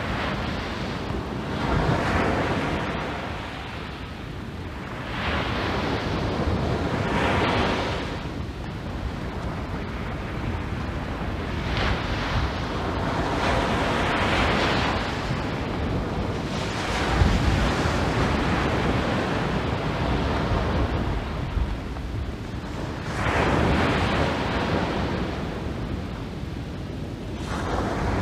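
Surf breaking on a sandy beach, the wash swelling and fading every few seconds as each wave comes in, with wind buffeting the microphone.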